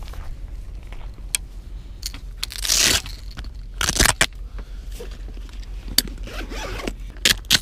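Handling noise from rummaging through fishing rods and gear in a car's back seat: scattered clicks and knocks with short rustling scrapes, the loudest a rushing scrape about three seconds in and another just after four seconds.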